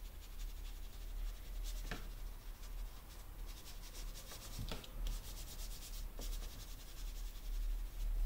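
A small ink applicator rubbed and dabbed over a sheet of planner paper to spread ink, a soft papery scratching with a few light knocks.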